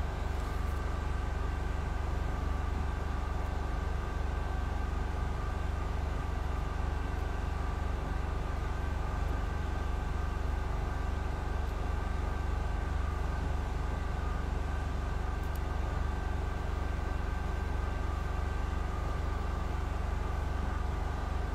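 A steady low mechanical hum with faint steady whining tones above it, unchanging throughout.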